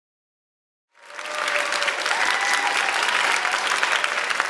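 Silence for about a second, then a theatre audience's applause fades in and carries on steadily at the curtain call.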